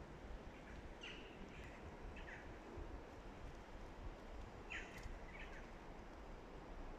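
Faint, short bird calls, about half a dozen brief chirps in scattered ones and twos, over a steady low outdoor background noise.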